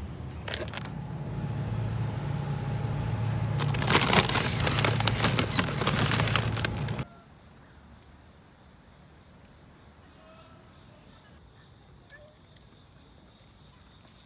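Low store hum under close crackling and rustling handling noise that grows loud and cuts off suddenly about seven seconds in. After that, a quiet night with a faint, steady, high-pitched trill of insects and a few faint chirps.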